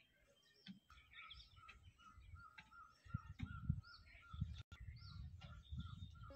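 Faint birdsong: one bird repeats a short call evenly about three times a second, with scattered higher chirps from other birds and a low rumble underneath.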